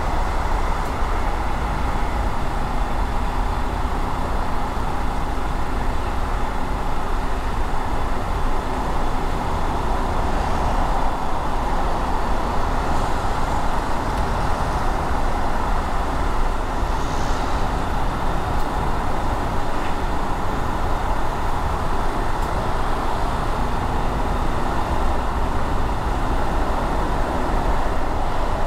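A car driving through city streets: steady tyre and engine noise with a deep hum.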